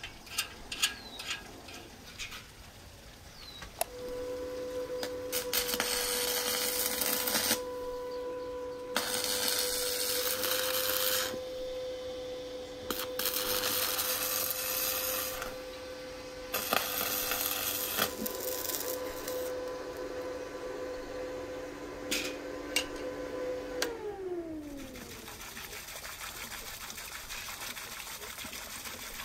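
Stick arc welding of steel bicycle-wheel rims onto a shaft. The arc crackles and hisses in several bursts a few seconds long over the welding machine's steady hum, which winds down in a falling whine after the last burst. It opens with a few light metallic clicks and ends with the steady rush of flowing water.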